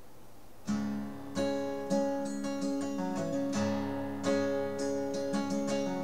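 Acoustic guitar starting up about a second in, playing a song intro of strummed chords mixed with lighter picked notes that ring on between strokes.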